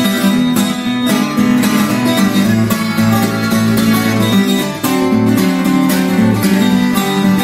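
Twelve-string acoustic guitar played in a driving, rhythmic pattern of strummed and picked chords.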